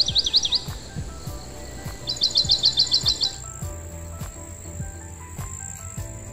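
A songbird singing two quick runs of rapidly repeated high notes, one right at the start and one about two seconds in, over a steady high-pitched insect drone.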